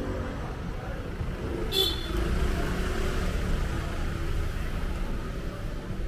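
City street traffic, with a car running close by as a steady low rumble that swells slightly after about two seconds. A brief high-pitched squeak comes just before that.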